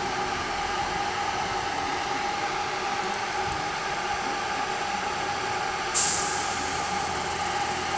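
Class 323 electric multiple unit standing at the platform, its equipment humming steadily with a faint steady whine. About six seconds in comes a sudden hiss of released air, typical of the train's air brakes, fading over a second or so.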